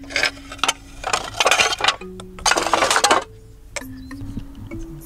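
Broken fibre-cement roofing sheets scraping and clinking against each other as they are shifted and pried with a metal snake hook. It comes in several rough bursts with a few sharp clicks between, and stops a little after three seconds in.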